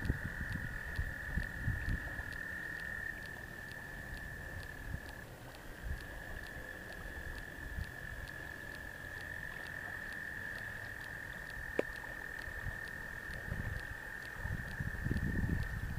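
A chorus of many tree frogs calling at once, blending into one steady, high-pitched ringing sound.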